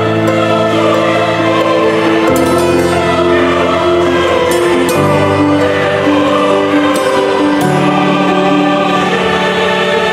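Background music: voices singing over sustained chords, the chord changing about every two and a half seconds.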